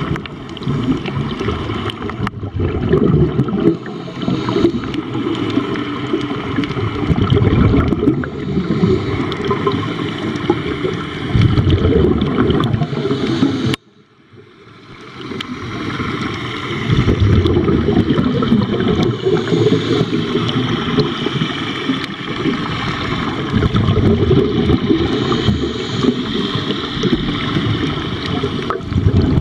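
Muffled underwater bubbling and rumbling of scuba divers' exhaled air, picked up through a camera's waterproof housing. It swells in surges every few seconds, drops out suddenly about halfway through, then fades back in.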